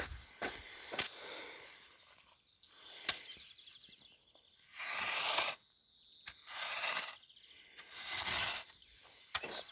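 Forest ambience: several sharp cracks and a few swells of rustling, like something moving through dry leaves, with a faint bird chirp.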